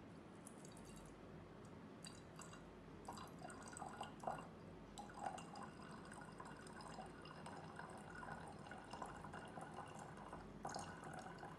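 Clear liquid trickling and dripping from a plastic bottle into a glass volumetric flask, faint and uneven, picking up from about three seconds in.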